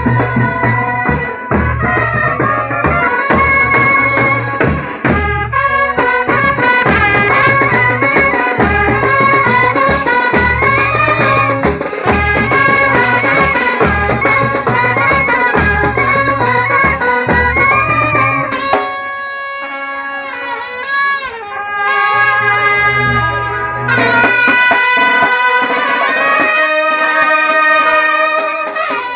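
Procession band music: wind instruments play a melody over a steady drum beat. The drums stop about two-thirds of the way through and the melody carries on alone in long held notes.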